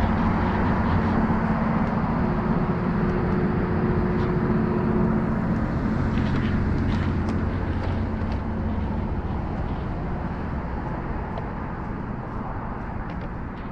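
A steady low mechanical hum from a running engine or motor, over a bed of outdoor traffic-like noise. It grows gradually fainter through the second half.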